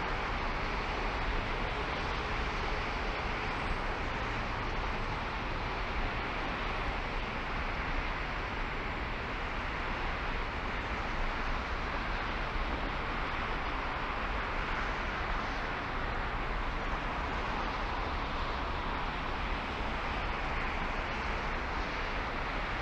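Steady road and wind noise from a car driving, a constant rushing hiss over a low rumble.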